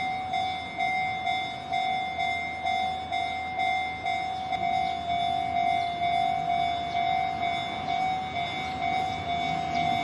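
Japanese railway level crossing warning bell ringing, a repeating 'kan-kan' tone at about two strokes a second as the crossing is closed for an approaching train.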